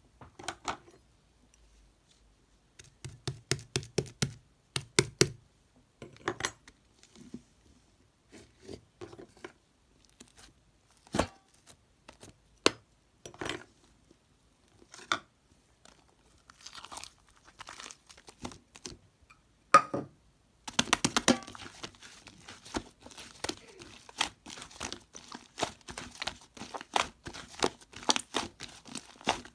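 White slime being pressed, poked and stretched by hand, making sticky clicks and crackly pops. The clicks come in small separate clusters at first, then turn into a dense, continuous crackling about two-thirds of the way in.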